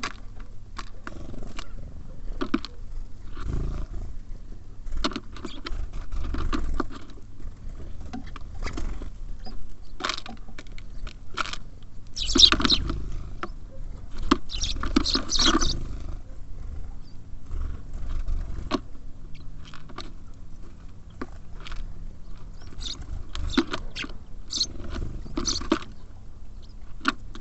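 Small birds at a feeder close to the microphone: irregular taps, clicks and scratches of pecking and claws on the feeder, with two louder bursts of scrabbling about halfway through, over a steady low rumble.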